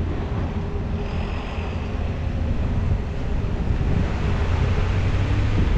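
Steady low vehicle rumble under a haze of road or wind noise.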